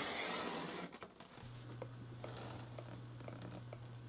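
A pencil scratching along a steel ruler across leather, a rasp lasting about a second. It is followed by a low steady hum with a few faint light ticks.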